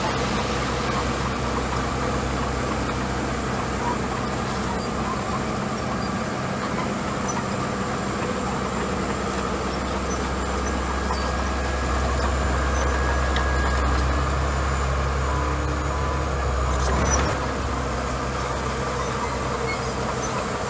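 Small crawler bulldozer's diesel engine running steadily as it pushes a load of gravel. A deeper low rumble grows louder in the second half and cuts off suddenly with a short knock a few seconds before the end.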